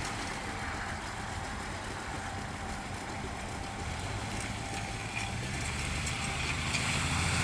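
Off-road 4x4 engine idling steadily, its low hum growing louder about four seconds in.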